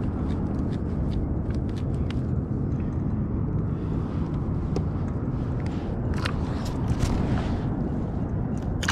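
Steady low wind rumble on the microphone, with scattered small clicks and ticks as fishing line and tackle are handled.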